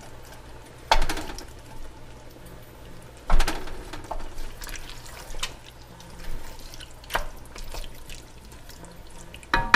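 A spoon working through canned tomatoes in a saucepan, breaking them up, with wet squelching and sloshing and five sharp knocks of the spoon against the pan about every two seconds, the loudest about three and a half seconds in.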